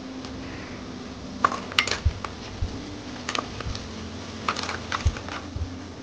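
Metal utensils clinking and knocking against cookware in scattered clusters of sharp clinks, with a steady low hum underneath.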